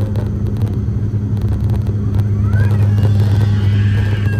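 Turboprop airliner's propeller and engine drone heard inside the cabin on approach: a loud, steady low hum with a second steady tone above it.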